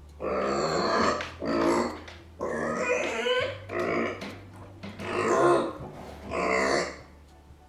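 A micropig crying out again and again in protest, about six loud cries of half a second to a second each, with short pauses between them: the discontented, angry calls of a pet pig left behind by its owners.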